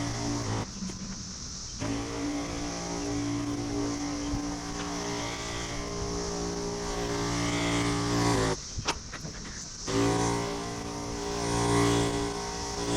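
Bucket sprayer's pump motor running with a steady hum, cutting out twice for about a second (about a second in and again around nine seconds) and starting up again.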